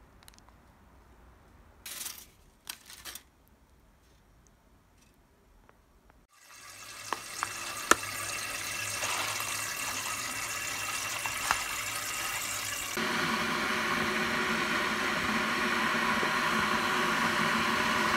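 A few short crinkles of a foil snack wrapper. From about six seconds in, a steady rush of water begins and gets louder about thirteen seconds in.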